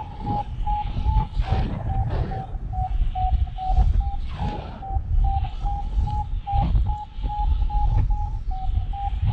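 Paragliding variometer beeping in short, evenly spaced tones, about two or three a second, signalling that the glider is climbing in a thermal. Wind rushes and buffets over the microphone.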